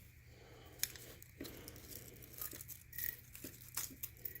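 Faint rustling and tearing of packaging as items are unwrapped by hand, with scattered small clicks.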